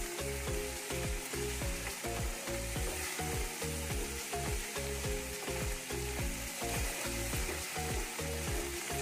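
Onion, ginger-garlic and green-chilli masala paste sizzling in oil in a kadai as it is stirred with a wooden spatula. Background music with a steady beat plays over it.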